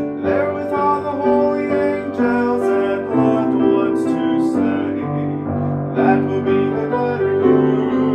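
Upright piano playing a gospel hymn tune in full, sustained chords over a moving bass line.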